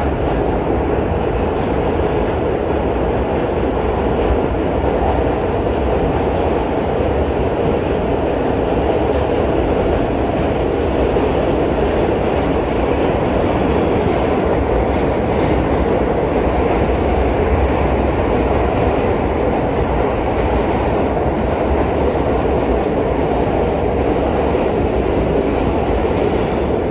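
R68 subway train running between stations, heard from inside the car: a steady noise of wheels on rails and running gear, unchanging in level.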